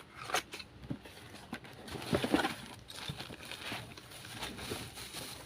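Scattered light knocks and clicks, with a brief pitched, wavering sound about two seconds in.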